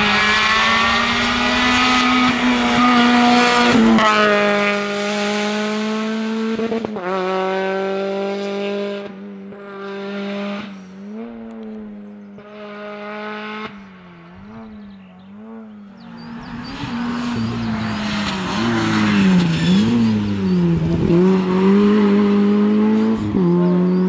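Rally cars' engines running hard as several cars pass in turn. The pitch climbs and holds under full throttle, then rises and falls quickly as the drivers lift and blip through corners, with a quieter stretch in the middle.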